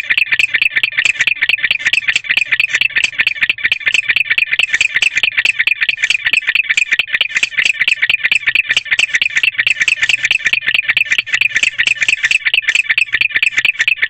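Barn owl courtship chirping: a loud, rapid run of short, high chirps repeated many times a second without a break.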